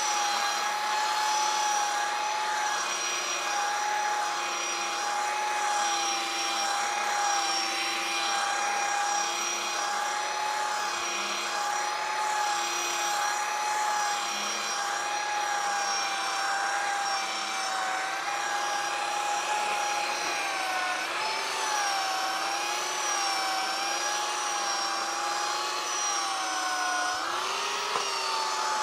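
Electric sander running steadily against a black walnut mantel board, a continuous motor whine that wavers in pitch several times in the later part.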